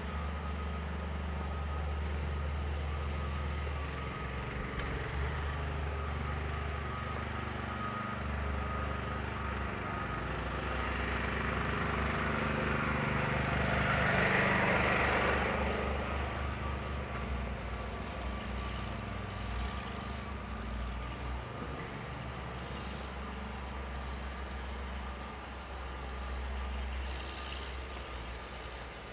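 City street ambience: a steady low rumble and a faint steady whine, with one vehicle passing by about halfway through, its noise rising and then fading over several seconds.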